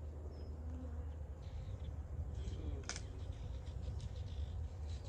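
Low steady rumble with faint handling ticks and one sharp click about three seconds in, over a faint steady buzz of honeybees around the open hive.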